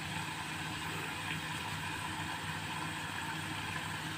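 Hot oil sizzling and bubbling steadily in a small pot where elephant yam slices are deep-frying, over a steady low hum.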